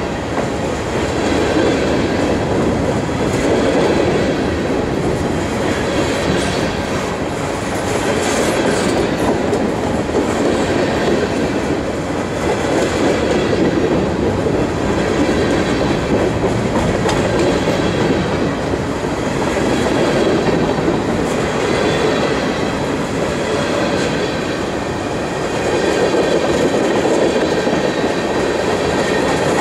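A freight train's covered hopper and tank cars rolling steadily past close by: steel wheels on the rails, with a continuous loud rolling noise that swells and eases slowly as cars go by.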